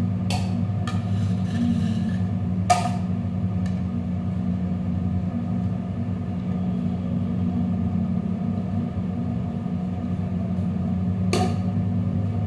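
A steady low machine hum, with a few short sharp knocks, one about three seconds in and one near the end.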